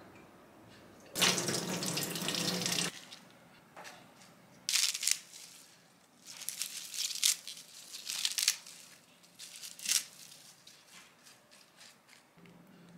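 Kitchen faucet running for about two seconds while blueberries are rinsed, then lettuce leaves torn by hand into a salad bowl in short crisp rustles.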